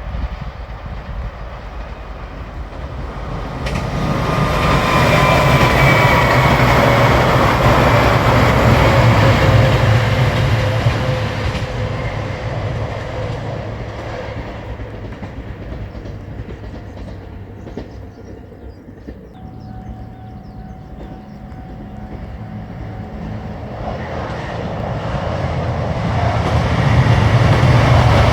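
Diesel limited express railcars passing: engine and wheel-on-rail rumble swells loud with a whine that falls in pitch as the train goes by, then fades. A second train's rumble builds up again near the end.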